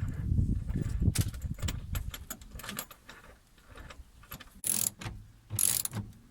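Hand socket ratchet clicking rapidly as a bolt is undone, then a few sharp knocks and two short scraping rustles near the end.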